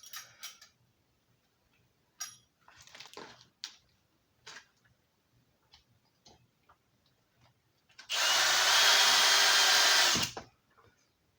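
A few light clicks and knocks of handling, then a power drill runs steadily for about two seconds, driving a screw to mount an electrical box.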